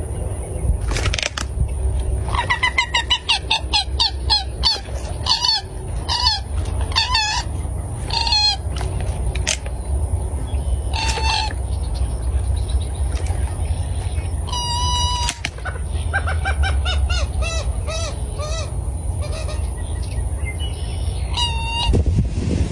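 A bird calling in runs of short, pitched calls, several a second, with pauses between runs, over a steady low rumble.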